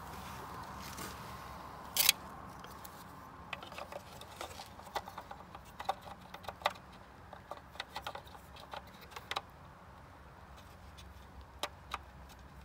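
Small sharp plastic clicks and taps as bulb sockets are twisted into the back of a Honda Civic taillight housing, the loudest click about two seconds in.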